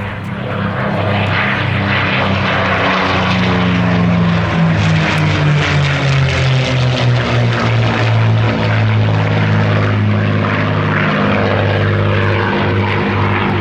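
Propeller-driven Second World War piston-engined fighter flying past, its engine note falling in pitch as it goes by.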